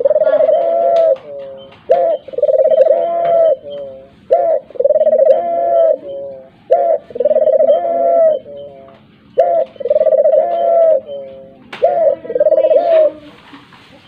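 Barbary dove (puter) cooing: six repeated coos about two and a half seconds apart, each a short note followed by a long drawn-out note with a brief falling tail.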